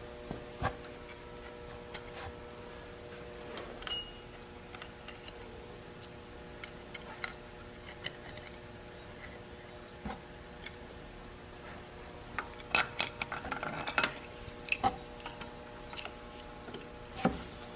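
Scattered metallic clicks and clinks of washers, cylinder bolts and hand tools being handled and fitted on the engine, over a faint steady hum. A quick run of clinks comes about thirteen to fifteen seconds in.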